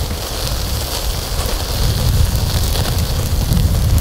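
Charcoal fire crackling and chili garlic butter sizzling on balut eggs grilling on a wire rack: a steady dense hiss dotted with small crackles, over a constant low rumble.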